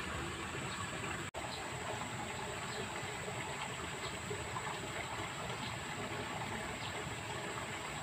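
Steady rush of flowing water from an irrigation channel, with a thin, steady high-pitched tone above it. The sound cuts out for an instant just over a second in.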